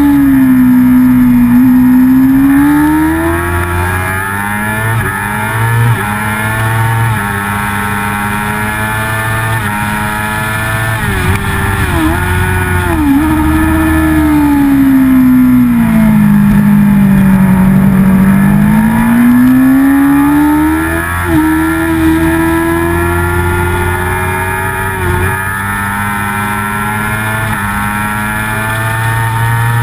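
Onboard sound of a racing sportbike's engine at high revs. Its pitch sags and climbs as the bike slows and accelerates, with quick breaks in the note at gear changes about twelve and twenty-one seconds in, over steady wind rush.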